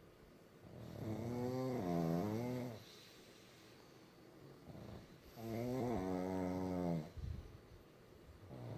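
Pugs snoring in their sleep: two long snores with a wavering pitch, the first about a second in and the second about five seconds in, with quieter breathing between them and a shorter snore starting near the end.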